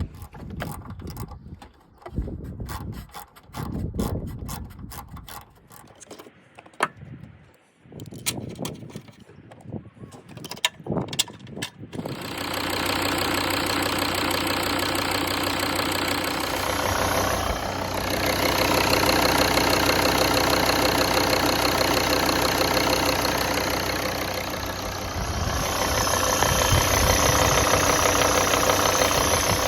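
Volvo five-cylinder diesel engine starting after some scattered clicks and knocks, about twelve seconds in, then running steadily. Its level rises twice, briefly. This is the engine running on its newly fitted timing belt.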